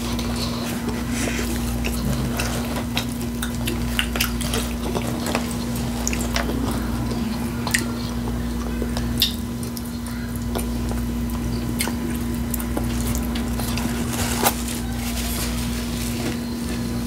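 Utensil clinking and stirring through a taco salad, with scattered sharp clicks over a steady low hum.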